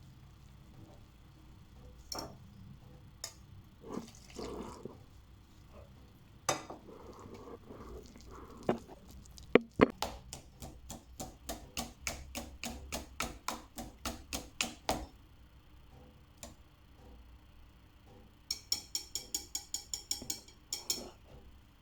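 Kitchen utensil knocking against cookware: a few scattered knocks, then a long steady run of about three taps a second, and after a pause a quicker, brighter run of taps near the end.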